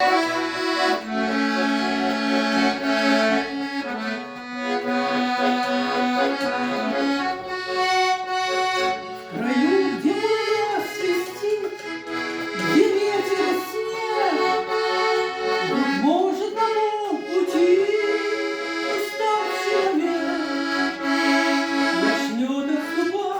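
Song with accordion accompaniment. Held accordion chords open it, and a singing voice with sliding pitch comes in about nine and a half seconds in.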